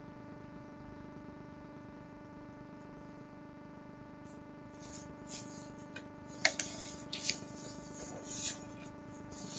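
Steady electrical hum on an open computer microphone. About halfway through comes a run of faint clicks and rustling, with a sharp click about two-thirds of the way in.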